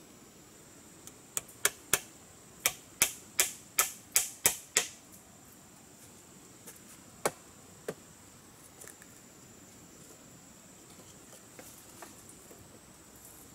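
Hammer blows on a blade driven into a thick bamboo pole: about a dozen sharp knocks coming quicker and quicker over the first few seconds, then two single knocks a little later. A steady high insect buzz runs underneath.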